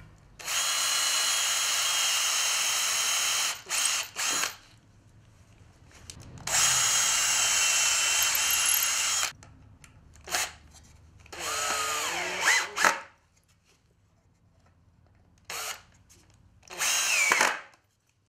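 Cordless drill-driver driving screws into pallet wood. It runs in several bursts of one to three seconds with short blips between them, and its whine shifts in pitch as the screws bite.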